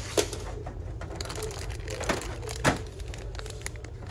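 Goods and packaging being handled while shopping, with a few sharp knocks and clicks and some crinkling over a steady low hum of the store.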